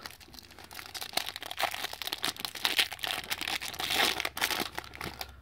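Foil wrapper of a Fleer X-Men trading card pack being torn open and crumpled by hand: a dense run of crinkling and crackling.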